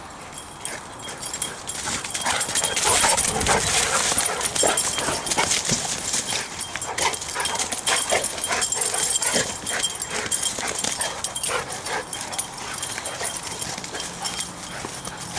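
Two dogs, a golden retriever and a yellow Labrador-type dog, play-fighting: dog vocalizations over scuffling paws in dry leaves and mud. The sound gets louder about two seconds in.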